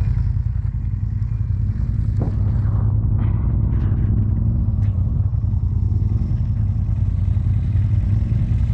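Side-by-side UTV engine running steadily with a low rumble, with a few faint knocks partway through.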